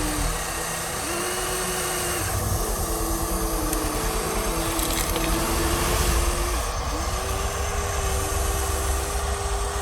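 Small electric motors of RC construction models whining under load. The whine holds a steady pitch for a second or two, then glides up to a new pitch, over a low rumble.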